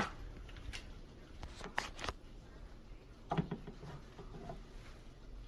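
A 4-month-old Cane Corso puppy cleaning her wet mouth after drinking: faint rustles and scattered clicks, the sharpest right at the start.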